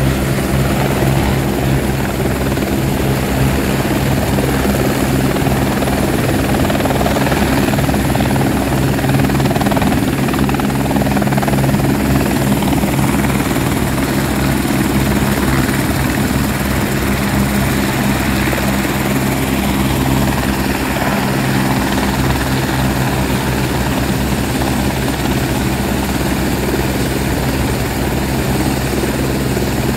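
Helibras AS350 Esquilo helicopter, its turbine and main rotor running loud and steady as it settles onto a grass field and sits on the ground with the rotor still turning.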